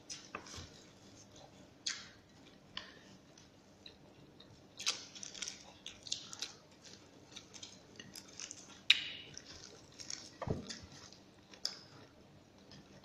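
Close-up eating sounds: chewing and mouth noises of a person eating rice and leafy greens, with scattered light clicks of a spoon against a plate. One sharp click comes about nine seconds in.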